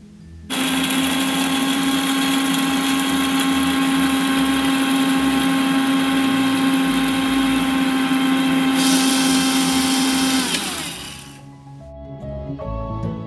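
Electric mixer grinder's steel jar grinding dry-roasted whole spices into biryani masala powder. The motor starts abruptly and runs with a loud, steady hum; the top hiss eases near nine seconds in. It switches off about ten seconds in and winds down with a falling pitch.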